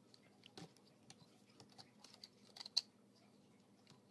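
Faint, irregular clicks and taps of the plastic parts of an Age of Extinction Voyager class Grimlock Transformers figure being handled and shifted during transformation, with the sharpest click a little under three seconds in.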